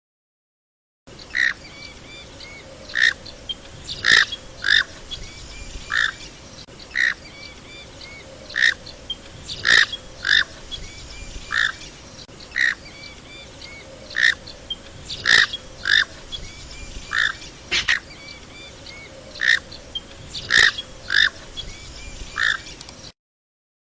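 Knob-billed duck (comb duck) calling: a long series of short calls, roughly one to two a second, with a brief silence in the first second and again near the end.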